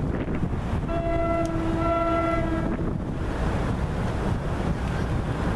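Wind buffeting the microphone, with an approaching NJ Transit train's air horn sounding one chord of just under two seconds about a second in.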